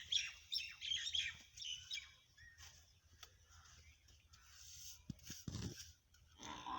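Small birds chirping rapidly and repeatedly, densest for the first two seconds and then sparser and fainter, with a few soft knocks near the end.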